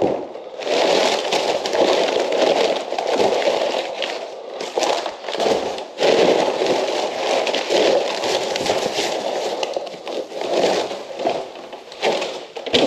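Packaging being handled, crinkling and rustling almost without pause, with a few sharp knocks.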